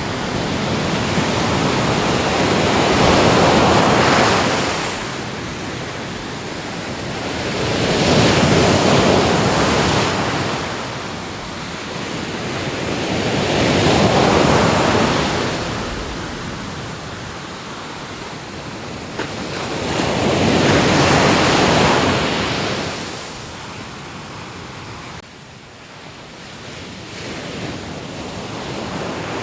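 Ocean waves breaking and washing up on the shore, a steady rush of surf that swells with each wave about every six seconds, four times. After the last wave it drops away suddenly and stays softer.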